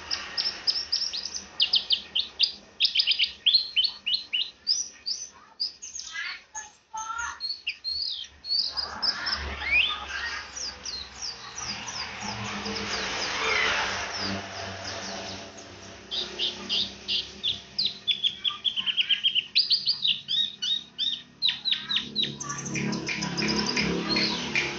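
White-eye (pleci) singing a fast, high, chattering song of quick repeated chirps in runs, with short breaks between them.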